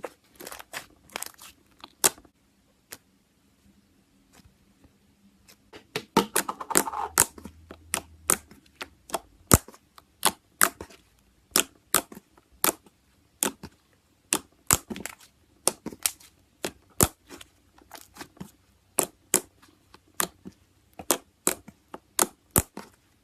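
Slime being squeezed and pressed by hand, giving off a run of sharp, irregular pops and clicks as trapped air bubbles burst, with a denser crackling cluster about six seconds in.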